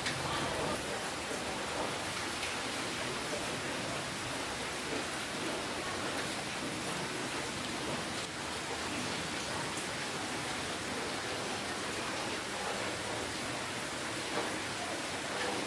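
Steady rainfall: an even hiss of rain with scattered individual drops ticking on a surface.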